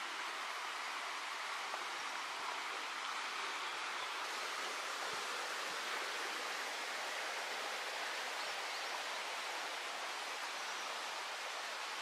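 Mountain river running over rocks: a steady, even rush of water.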